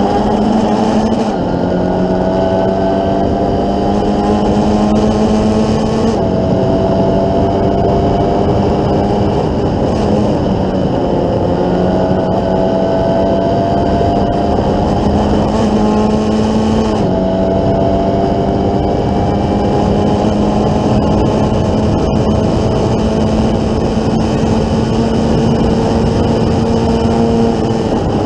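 Formula Ford 1600 race car's Ford Kent four-cylinder engine heard onboard at racing speed: the pitch climbs steadily through each gear and drops sharply at each change, several times, under heavy wind rush.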